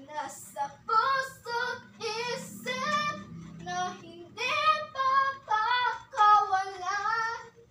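A young girl singing a melody in short sung phrases, ending in a long, wavering held note near the end.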